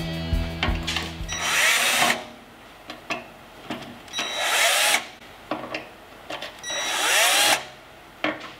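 Cordless drill/driver backing out the screws of the fuel pump mounting ring on an aluminum fuel tank. It runs in three short bursts of about a second each, its whine rising in pitch as it spins up, with small clicks in the gaps between.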